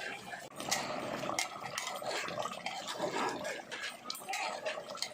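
A spoon stirring thick pork curry in a pressure cooker, scraping and clinking against the metal pot in irregular strokes.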